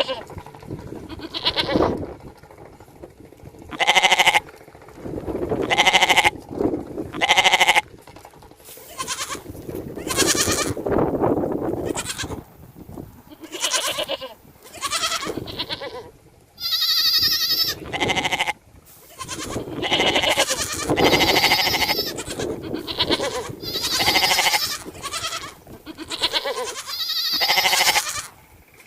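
Goats bleating over and over, short calls coming one to two seconds apart.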